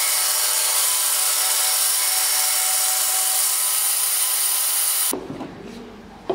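Bandsaw running and cutting through a long wooden blank: a steady whine with many tones. It cuts off abruptly about five seconds in, and a single sharp knock of a hammer striking a carving chisel follows near the end.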